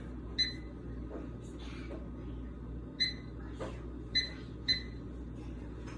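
Four short electronic beeps from a timer's buttons being pressed as a 3-minute cooking timer is set: one early, one about three seconds in, then two close together near the end.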